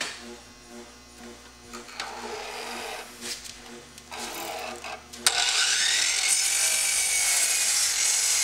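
About five seconds in, a DeWalt compound miter saw starts suddenly with a loud rising whine. Its blade then cuts through a length of crown molding.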